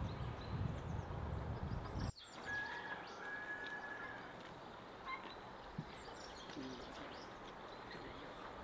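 Rural outdoor ambience: a low rumble that cuts off abruptly about two seconds in, then a quieter background with faint scattered bird chirps and a few light clicks.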